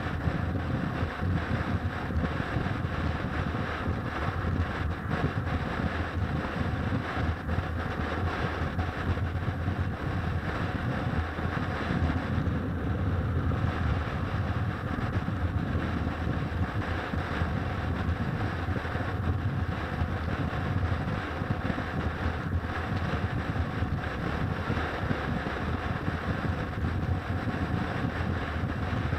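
Motorcycle cruising at freeway speed: a steady low rumble of engine and road noise under constant wind noise on the microphone.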